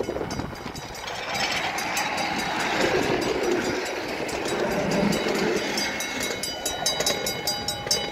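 A rail vehicle running on track: a noisy rumble that swells and eases, with a quick run of regular clicks starting near the end.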